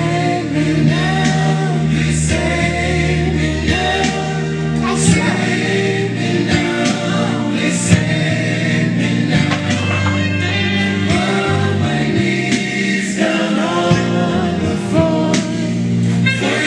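Gospel song with singing voices over steady bass and chords.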